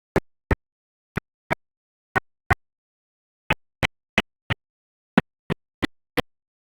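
Short sharp knocks, mostly in pairs about a third of a second apart, with dead silence between them.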